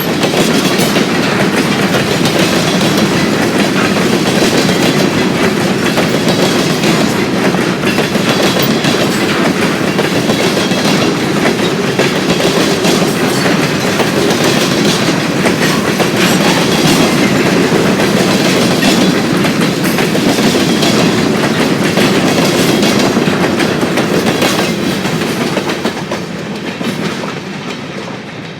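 Freight train rolling past, its cars making a steady rumble with clickety-clack over the rails; the sound fades away near the end as the train moves off.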